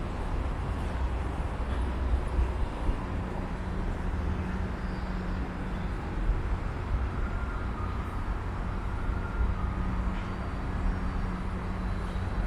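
Urban outdoor background noise: a steady low rumble of the city, like distant traffic, with a faint steady hum joining a few seconds in and fading near the end.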